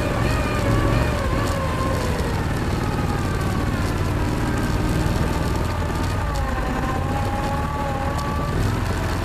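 Argo amphibious ATV running under way: a steady engine drone with a whine that slowly wavers up and down in pitch.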